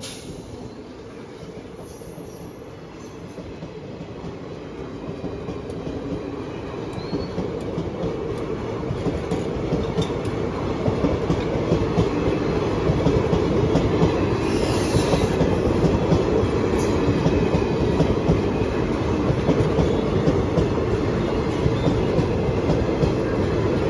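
Indian Railways passenger train passing at speed, its coach wheels clattering rapidly over the rail joints. The rumble grows louder over roughly the first ten seconds, then holds steady and loud.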